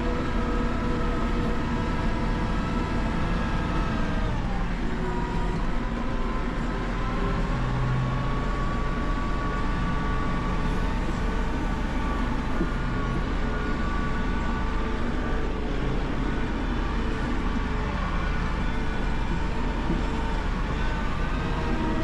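New Holland 4030 tractor engine running steadily under load while it pulls and powers a New Holland 499 Haybine mowing hay, heard from inside the tractor cab as a continuous drone whose pitch shifts slightly about four seconds in.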